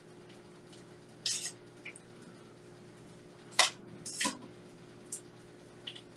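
A fork clinking and scraping against a bowl while a piece of fish is turned in flour: a few separate clinks, the sharpest about three and a half seconds in. A faint steady hum runs underneath.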